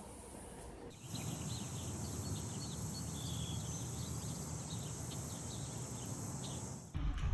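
Outdoor ambience: many short chirps from small birds over a steady high hiss and a low rumble, which start suddenly about a second in and stop near the end.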